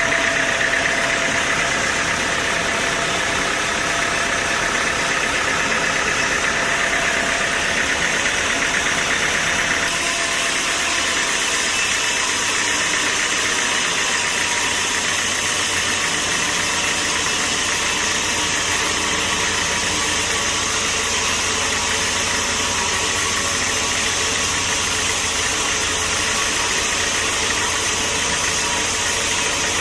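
Sawmill machinery running steadily, an engine-like hum with no strokes or pauses; the tone shifts abruptly about ten seconds in.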